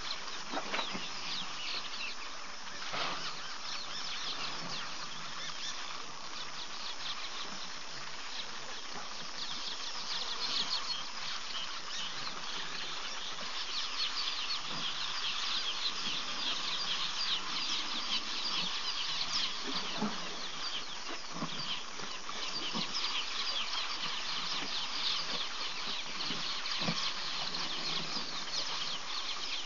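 Daytime bush ambience: a dense, steady chorus of rapid high chirping from birds and insects, a little louder in the second half, with a few faint low knocks.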